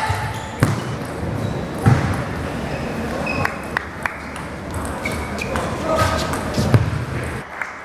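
Table tennis ball being struck back and forth in a doubles rally: short sharp clicks of the celluloid ball on rubber-faced paddles and the table, a fraction of a second to a second or so apart.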